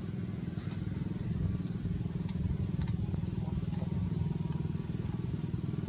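A small engine running steadily at idle, a low even drone with rapid pulsing. A few faint sharp clicks come through it, around two to three seconds in and again near the end.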